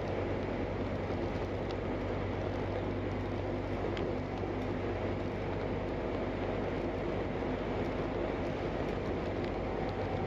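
Inside a moving bus: steady engine and road noise with a low hum and a few faint ticks.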